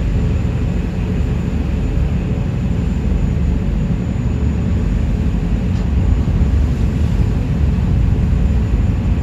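Passenger ferry under way, its engines giving a loud, steady low rumble with a faint hum above it.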